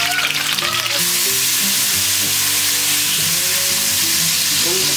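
Whole hard-boiled eggs frying in hot oil in a wok: crackling and spattering as they go in, settling about a second in into a steady, loud sizzle.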